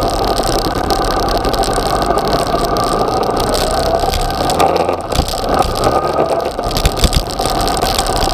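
Yamaha XJ6's inline-four engine running at low revs as the motorcycle rolls slowly and slows down, under steady wind noise on the microphone. A few low thumps come between about five and seven seconds in.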